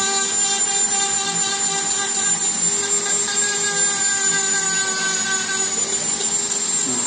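Steady machine hum: a motor's even drone with several steady tones over a hiss, holding level throughout.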